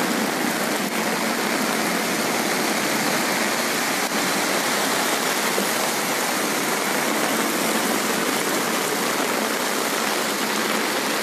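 Heavy rain and floodwater: a steady, even hiss of water.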